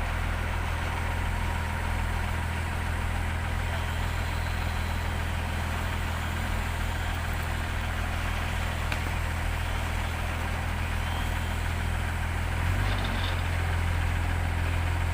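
A heavy vehicle's engine runs steadily at low revs. About thirteen seconds in, its note steps slightly higher and louder.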